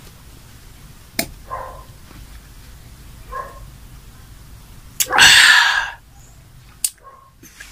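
A man sneezes once, loudly, about five seconds in. A few short, faint voice-like sounds and a click come before it.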